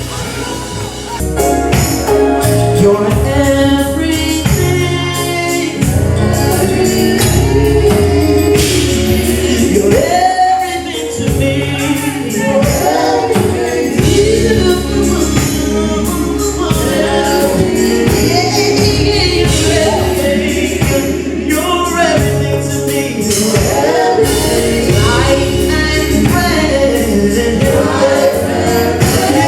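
Live gospel music: singers with a band, a steady bass line and beat, with tambourine.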